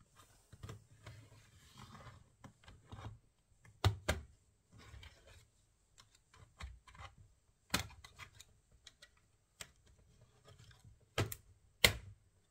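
Hard plastic parts of a laptop being handled: irregular light clicks and scraping, with a few sharp, loud clicks, two of them close together about four seconds in and two near the end.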